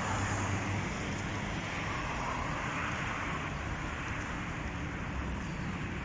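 Street traffic: cars driving along a city boulevard, a steady hiss of tyres and engines, swelling as a car passes about two seconds in.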